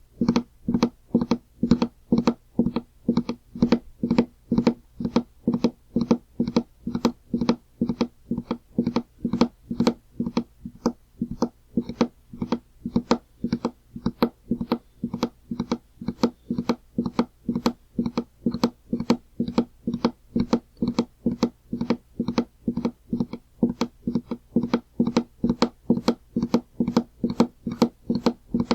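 Galloping horse hoofbeats as a sound effect: hollow, knocking hoof strikes repeating in a steady, even rhythm of about two to three strikes a second.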